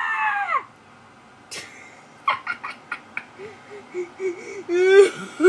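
A high-pitched scream trails off, falling in pitch and cutting off just over half a second in. Brief soft vocal sounds follow, and a voice rises sharply in pitch near the end.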